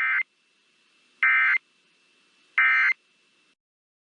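Emergency Alert System end-of-message data bursts: three short, identical two-tone digital warbles in the SAME code, about 1.3 seconds apart. They signal the end of the alert message.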